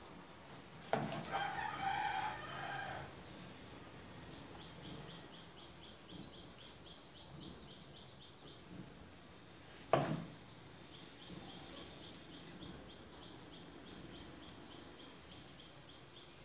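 A rooster crows in the background for about two seconds, starting about a second in. About ten seconds in, a knife blade knocks once sharply on a wooden chopping board while cutting tomatoes. Through much of the rest runs a fast, even, high-pitched ticking of about five pulses a second.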